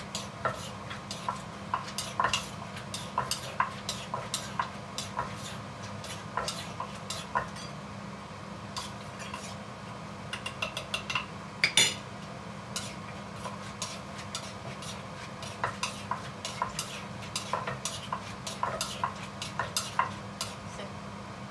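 Wooden pestle knocking and a spoon scraping in a clay Thai mortar as ingredients are pounded and mixed: irregular light taps, several a second, with a sharper clatter about 12 seconds in. A steady low hum runs underneath.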